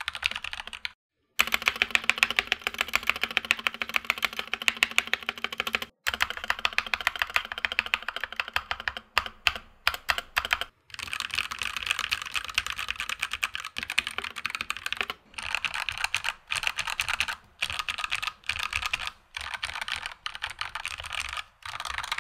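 Fast typing on a custom Voyager 65 mechanical keyboard whose switches have been hand-lubed with Krytox 205g0 and fitted with 65 g springs: a dense, rapid stream of keystroke clacks, cut off abruptly to silence a few times.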